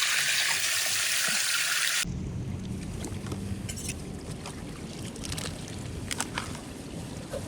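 Water rushing through a culvert drain: a loud hiss for about two seconds that cuts off suddenly, then a lower rumbling flow with scattered small clicks and splashes.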